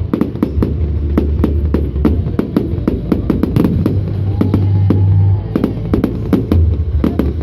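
Fireworks display: a rapid, irregular string of bangs, several a second, over loud music with a deep bass line.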